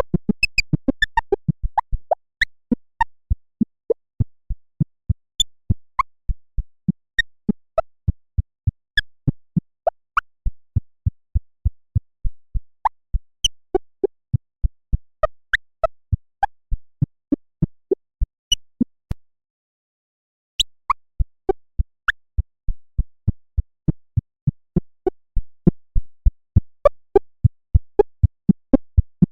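Synthetic electronic sound effect: a steady train of sharp clicks, a few a second, each with a short bleep that jumps about in pitch. It breaks off briefly past the middle and returns faster near the end.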